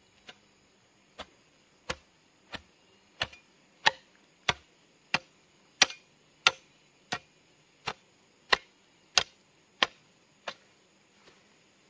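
A hand hoe's metal blade chopping into dry, grassy soil in steady strokes, about three every two seconds, with the last couple lighter before they stop.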